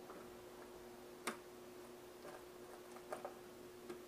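Light, sharp clicks and taps as a multimeter circuit board is handled in the hands, about five in all, the loudest about a second in, over a faint steady hum.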